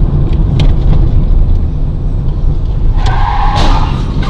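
Car on the move heard from a dash camera: a loud low rumble of engine and road noise, with a few sharp knocks and a brief higher-pitched sound about three seconds in.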